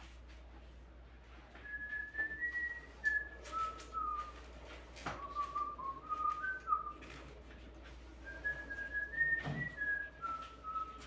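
A whistled tune in two descending phrases of held notes, with a couple of sharp knocks from objects being handled.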